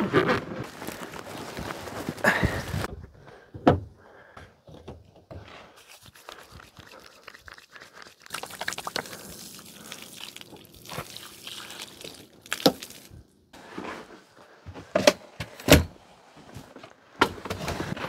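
Rustling and handling of a fabric bag, then water from a hose splashing over hands for a few seconds, with several sharp thunks scattered through, the loudest near the end.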